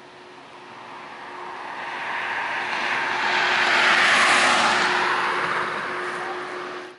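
Jet noise from a Boeing 787-9's GEnx turbofan engines, swelling as the airliner moves past and loudest about four seconds in, then fading, over a steady hum.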